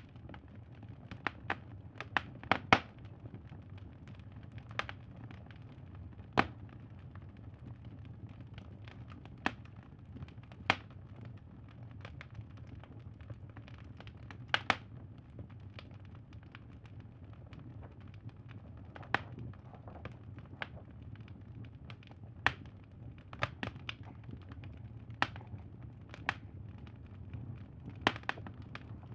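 Crackling wood fire: irregular sharp pops and snaps, about one every second or two, over a low steady background noise.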